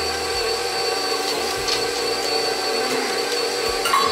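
KitchenAid stand mixer running steadily, its flat beater working thick brownie batter with walnuts: an even motor hum with a high whine. A short tap near the end.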